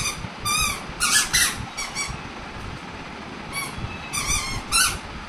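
A child's squeaky shoes chirping with her steps and shifting weight: short, high squeaks at irregular intervals. Around a second in comes a brief crinkle of a plastic packet.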